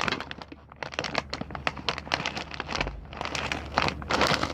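Plastic snack-bag packaging crinkling and crackling in irregular bursts as it is handled.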